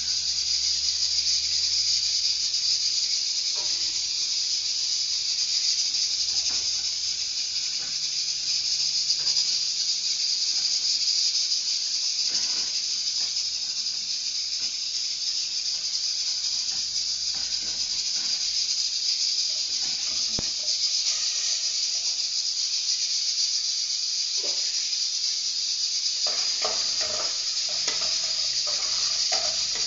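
Small pieces of pork fat (torresmo) sizzling steadily in hot fat in an aluminium pan, with a few faint spoon clinks and scrapes from stirring.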